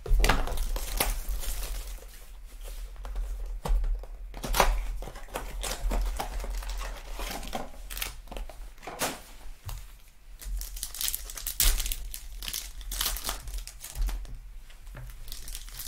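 Foil wrappers of 2020 Donruss Optic Football retail card packs crinkling as the packs are handled and one is torn open, in irregular sharp crackles.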